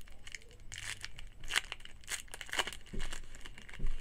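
A trading card pack wrapper being torn open and crinkled by hand, in irregular crackles, with a few soft thuds near the end.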